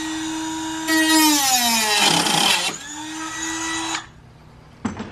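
Handheld rotary tool spinning at a steady high pitch. Its pitch drops as it bites into a plastic zip tie, it cuts through with a rasping sound, then it spins freely again at full speed before switching off about four seconds in.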